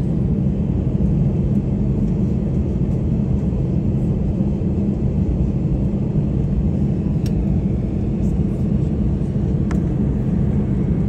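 Steady low rumble of a jet airliner heard from inside the cabin as it taxis on the apron, with two faint clicks in the second half.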